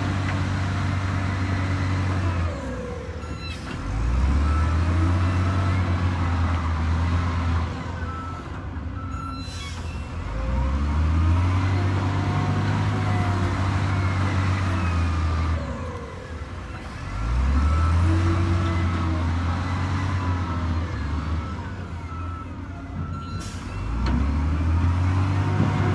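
Bulldozer's diesel engine working through repeated cycles. About four times it revs up under load, rising in pitch and loudness, then drops back down, with faint short high squeaks over it.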